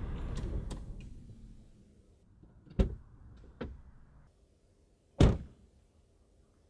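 A car engine running and dying away as the ignition key is turned off, with a couple of clicks from the key. Then three car-door thunks follow, the last and loudest a slam about five seconds in.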